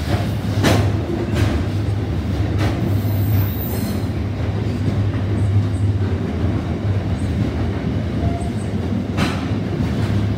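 Container freight train's wagons rolling past at close range: a steady low rumble of steel wheels on rail. Sharp clacks come as wheelsets cross rail joints, a few near the start and again near the end.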